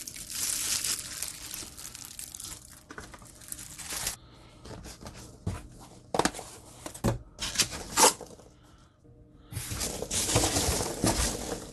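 Plastic wrapping crinkling as a sheathed knife is handled, then a few sharp knocks as boxes are moved, and near the end the rustle of foam packing peanuts being stirred in a cardboard box.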